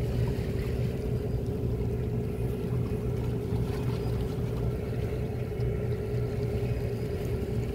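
A steady engine drone: a constant low hum with a steady, slightly wavering mid tone above it, over a faint wash of wind and water.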